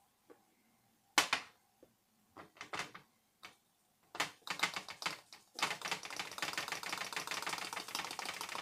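Fine salt running through a plastic funnel into a glass salt shaker. A few separate clicks and taps come first, then a dense, rapid crackle of salt grains from a little past halfway on.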